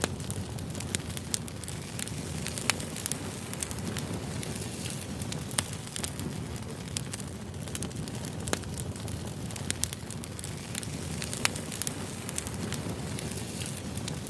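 Firewood burning: a steady low rush of flame with frequent sharp crackles and pops scattered irregularly throughout.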